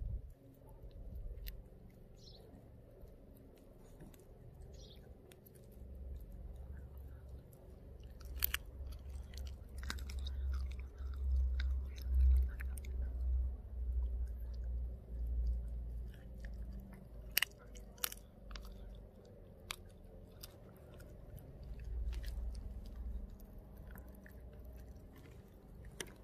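A Pomeranian chewing a raw duck foot, with wet gnawing and sharp crunches as its teeth break the small bones. A low rumble runs through the middle.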